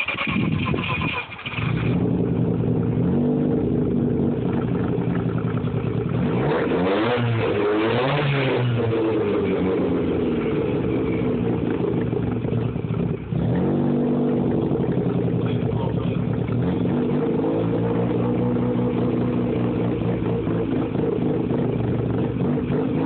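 Freshly rebuilt, half-bridge-ported turbo rotary engine in a Mazda RX-7 running on its first start-up: a steady idle, with the revs rising and falling once about seven seconds in and a brief dip about thirteen seconds in before it settles back to idle.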